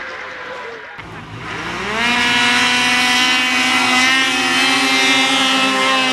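Racing snowmobile engines. A fading engine sound gives way about a second in to two drag-racing snowmobiles launching off the start line: their engines rev up steeply in pitch and then hold at full throttle as the sleds accelerate past.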